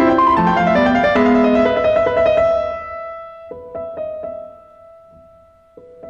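Background piano music: full, busy chords for the first couple of seconds, then it dies away to a few soft held notes, and a new quieter phrase begins near the end.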